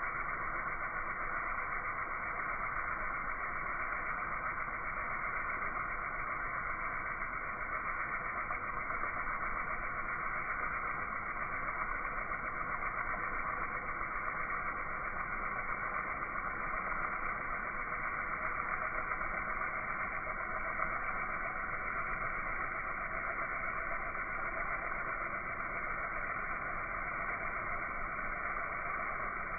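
Pressure washer running steadily, a constant noisy drone with no change in pitch or level.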